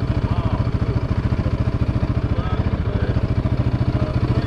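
Engine idling with a steady, even low pulse.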